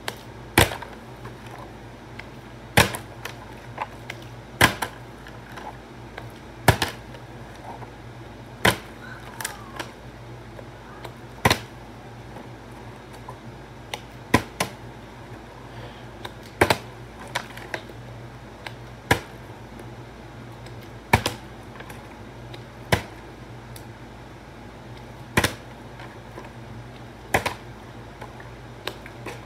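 Partly filled plastic water bottle flipped over and over, knocking down onto a hard floor: a sharp clack about every two seconds, sometimes a quick double clack as it bounces or tips, over a steady low hum.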